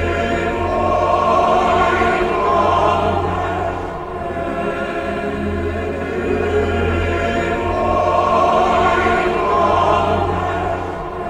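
Choral trailer music: a choir sings long swelling phrases over a steady low drone, rising twice to a peak.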